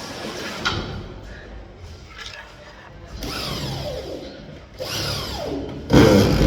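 Power drill running in three short bursts, its pitch falling within each burst, with a sharp click about a second in.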